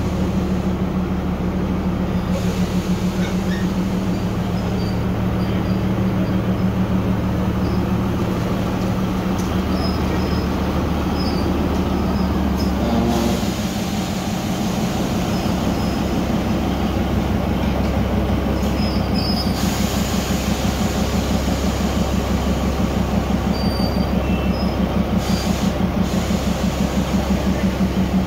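Narrow-gauge NDM6 diesel locomotive's engine running with a steady throbbing hum as the locomotive moves slowly along the track up to its coach.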